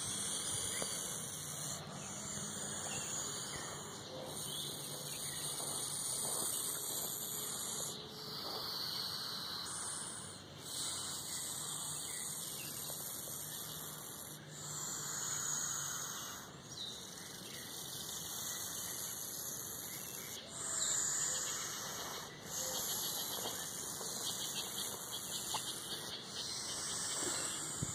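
Juvenile bullsnake hissing in its defensive threat display against would-be predators: long, breathy hisses that stop and start again every few seconds.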